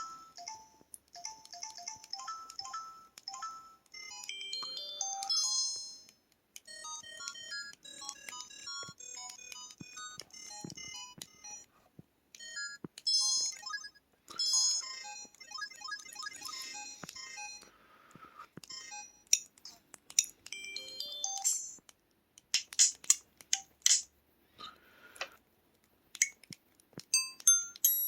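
SPH-S1000 mobile phone playing its built-in effect sounds: quick runs of short electronic chime-like blips at changing pitches. From about 19 seconds in, a series of sharp clicking, drum-like strokes.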